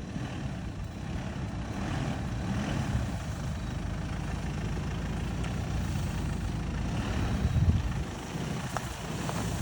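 Jeep Liberty SUV engine running at low revs, a steady low rumble, as it crawls slowly along an off-road mountain trail.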